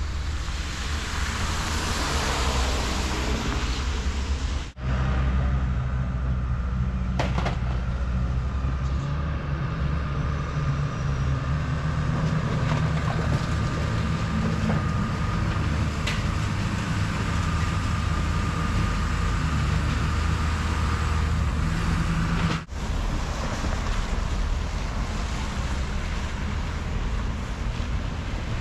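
Street traffic noise, broken by abrupt changes about five seconds in and again near the end. In the long middle stretch a wheel loader's diesel engine runs steadily with a low drone.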